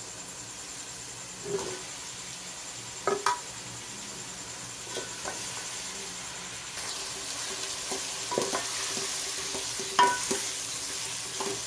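Onion and ginger-garlic masala sizzling in hot oil in a cooking pot while a spoon stirs it, with scattered knocks of the spoon against the pot. The sizzle grows louder about seven seconds in.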